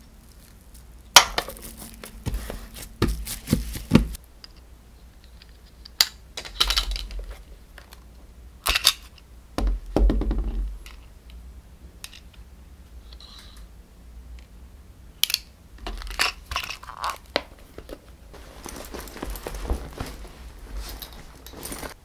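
Intermittent handling sounds: plastic wrap crinkling, with sharp clicks and knocks of small objects handled and set down on a table.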